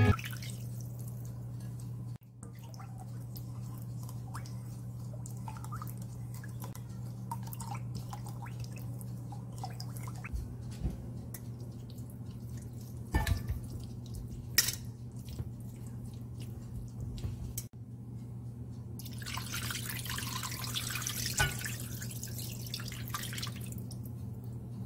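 Kitchen preparation over a steady low hum: a few clinks and knocks of chicken pieces and a perforated steel strainer against a stainless-steel pot, then liquid seasoning sauce poured into the pot for a few seconds near the end.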